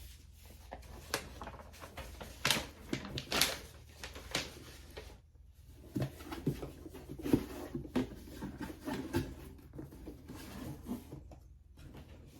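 Small cosmetic products and their packaging being handled, with rustles, scrapes and light knocks in two busy stretches and a brief lull about five seconds in.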